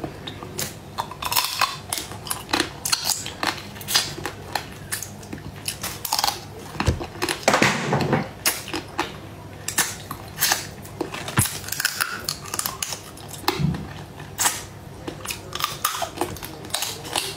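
Close-miked eating sounds: crab claw shell cracking and crunching in the mouth, with chewing and lip smacks as a run of irregular sharp clicks. One longer, louder burst comes about halfway through.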